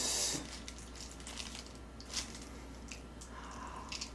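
Close-up eating of a fried chicken drumstick: a short hiss at the start, then scattered crisp crackles and wet chewing as the crust is bitten into.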